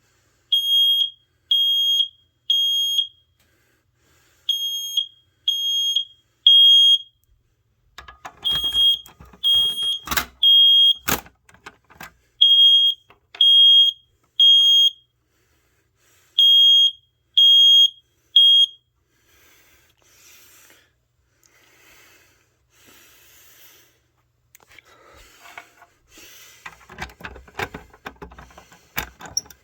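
First Alert 9120B ionization smoke alarm sounding in the temporal-three pattern, set off by the pulled Fire-Lite BG-12 pull station: five sets of three high-pitched beeps with a pause after each set, then it stops about two-thirds of the way through. A few sharp knocks and clicks come during the middle sets, and quieter rustling and clicking follow after the alarm stops.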